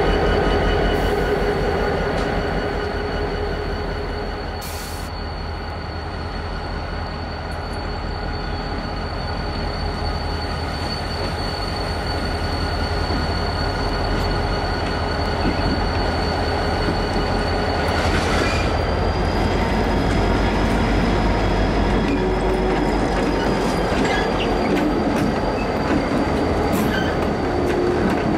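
EMD GP38-2 diesel locomotives with non-turbocharged 16-cylinder 645 engines rolling slowly around a curve, the engines rumbling under a steady high-pitched squeal of wheel flanges against the curved rail. The sound grows louder as the units draw near, with a few clicks of wheels over the rail joints near the end.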